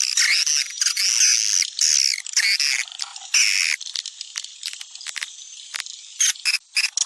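Swiftlet lure call recording: swiftlets twittering in long, high, sweeping chirps for about the first three seconds, then a run of rapid dry clicks mixed with short chirps.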